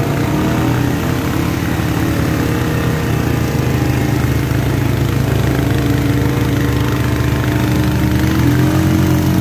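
ATV engines running steadily under load as they push through deep muddy water, the nearest being the Honda quad the rider is on, with water churning and splashing around the wheels.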